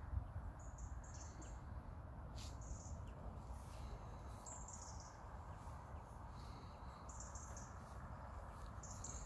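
Open-air ambience: wind rumbling on the microphone, with short, high chirps repeating every second or so.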